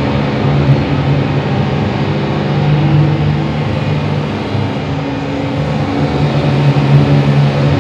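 Experimental radio-noise music played live on shortwave radio receivers and electronics: a loud, dense low drone over a hiss of static, with shifting tones that swell twice.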